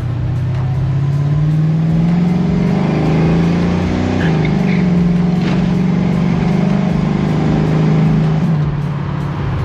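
LS V8 engine of a 1970 Chevy Nova, driven under acceleration: its pitch climbs over the first couple of seconds, dips briefly about four seconds in, holds fairly steady, then drops near the end as the throttle eases off.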